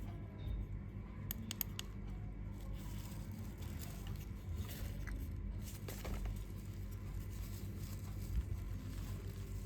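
Handling noise from an unboxing: light rustling and scraping of the flashlight and its packaging, with a few sharp clicks about a second and a half in and again near the middle, over a steady low hum.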